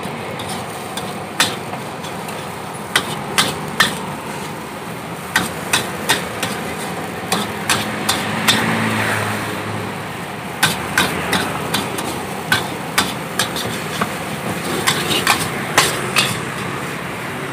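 Metal spatula knocking and scraping against a wok while stir-frying nasi goreng with shredded chicken: sharp, irregular clanks a second or so apart, over a steady rushing background.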